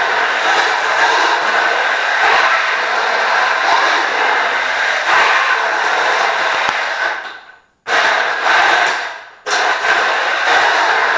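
A combat robot's geared electric drive motors whining as it drives around on a concrete floor. The whine dies away about two-thirds of the way in, cuts out briefly, starts up sharply, and drops out for a moment once more a second and a half later as the drive stops and restarts.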